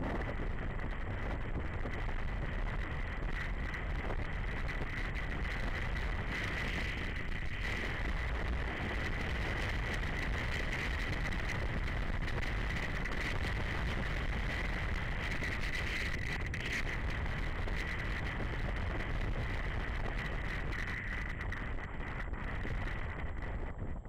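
Wind rushing over the microphone of a camera mounted on a moving motorcycle, a steady loud rumble with the BMW G 650 GS Sertão's single-cylinder engine running underneath.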